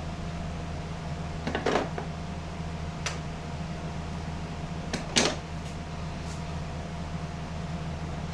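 Wood clamps being worked loose from a steam-bent trim board: a few short clicks and clacks, the loudest about a second and a half in and about five seconds in, over a steady low hum.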